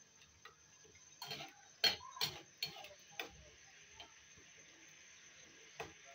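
Metal slotted spatula clicking and scraping against a metal karahi while ginger-garlic paste is stirred in oil. There are a few sharp clicks, most of them between one and three seconds in, and one more near the end.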